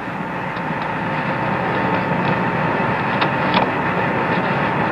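Steady hiss of the Apollo 11 air-to-ground radio voice link, an open channel with no one talking, with a faint steady tone and a few faint ticks.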